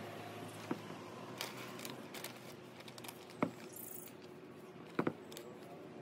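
Hands working potting mix around petunia plants in a pot: soft rustling with a few sharp clicks and taps, two close together near the end. A low steady hum sits underneath.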